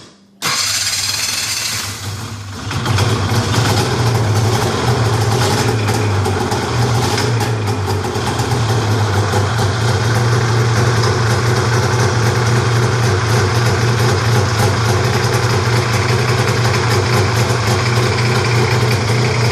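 Arctic Cat Cougar snowmobile's two-stroke engine started cold without choke after sitting about a week: about two seconds of starting noise, then it catches and settles into a steady idle.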